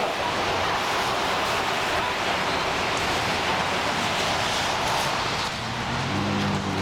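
A steady, even rushing noise. About five and a half seconds in, a vehicle engine's low hum comes in.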